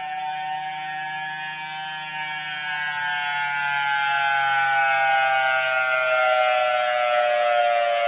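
Air raid siren sounding two tones together, its pitch slowly falling, and growing louder about three seconds in.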